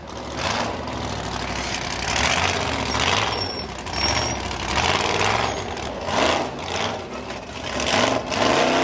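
Unlimited-class rock-racing car's engine, revving in repeated bursts every second or two over a steady low running note as it crawls over boulders.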